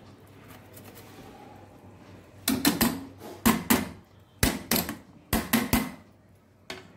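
Metal kitchenware knocking and clinking, the grater and steel saucepan: first a faint steady hiss, then from about two and a half seconds in a quick, irregular run of sharp knocks and clinks lasting some three and a half seconds.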